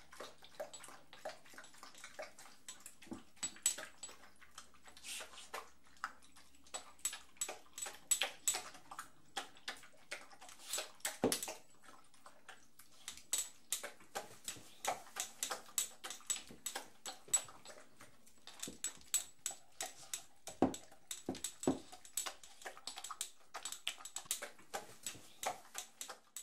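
Dog sounds: a long, irregular run of short, sharp noises, with a few louder ones about eleven seconds in and again around twenty-one seconds in.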